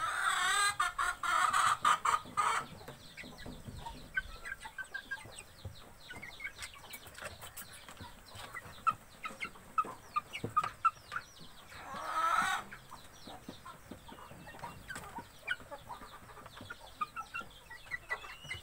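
Young native chickens (ayam kampung) cheeping and clucking as they peck at feed, with many quick taps of beaks on a plastic feeder tray. A louder, drawn-out call comes in the first couple of seconds and another about twelve seconds in.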